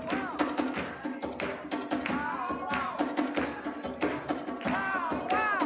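Talking drum played in quick strikes, its pitch bending up and falling back again and again over a fast drum rhythm.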